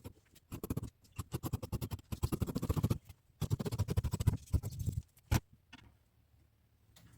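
Scissors cutting through fabric: three runs of rapid snipping, then a single sharp click about five seconds in.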